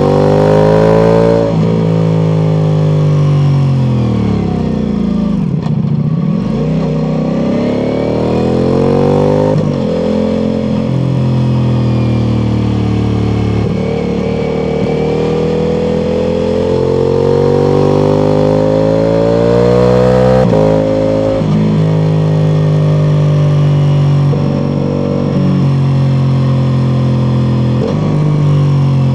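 Ducati Multistrada V4 Pikes Peak's 1158 cc V4 engine through an Akrapovic exhaust, under way: the revs climb and fall repeatedly, with several sharp gear changes.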